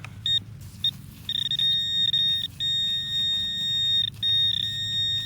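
Metal-detecting pinpointer sounding a high electronic beep: a few short beeps, then a steady tone held for a second or more at a time with brief breaks. The unbroken tone means the probe is right on metal, a lead bullet in the dirt of the hole.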